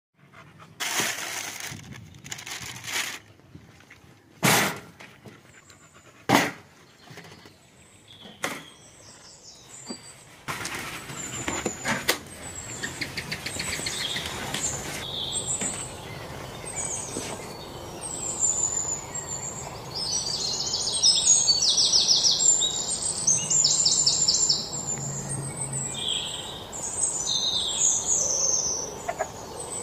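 Songbirds chirping and singing, with rapid trills that are loudest in the second half. A few sharp knocks come in the first ten seconds.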